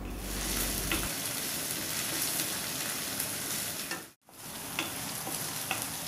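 Ground onion and garlic frying in oil in an iron kadhai: a steady sizzle with a few light spatula clicks. The sound cuts out for a moment about four seconds in.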